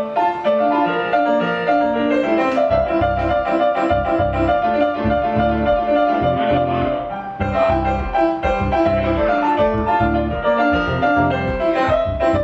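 Stage keyboards playing piano-like chords during a band sound check, with a pulsing bass line coming in about two seconds in.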